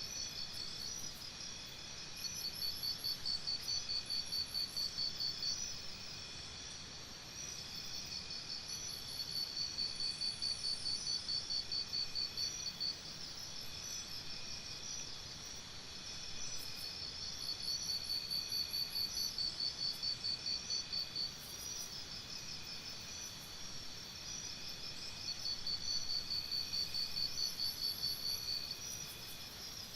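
Forest insect chorus: a steady high-pitched buzzing drone, with a louder pulsing trill of about five pulses a second that swells in four bouts of three to four seconds each.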